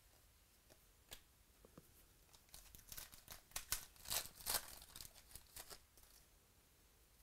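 Foil trading-card pack being torn open by hand, the wrapper crackling and crinkling in a quick cluster of rustles that starts about two and a half seconds in and dies away before six seconds. One light click comes about a second in.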